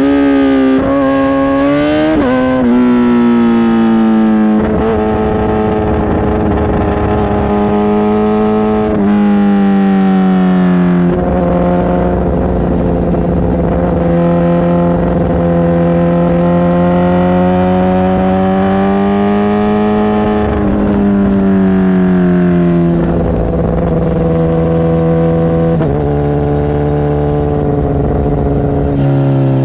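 Kawasaki ZX10R's inline-four engine breathing through a Brocks titanium CT megaphone exhaust, running steadily at moderate revs. The pitch climbs briefly at the start, then drops in steps about four times and holds between them, as when changing up or easing off the throttle.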